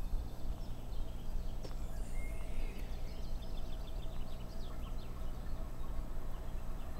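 Songbirds chirping in quick series of short high notes, most of them in the middle, over a steady low rumble.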